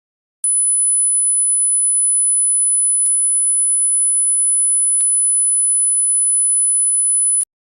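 Hearing-test tone: a single very high-pitched pure sine tone held at one steady pitch for about seven seconds, starting and stopping abruptly, with faint clicks at its edges and twice along the way.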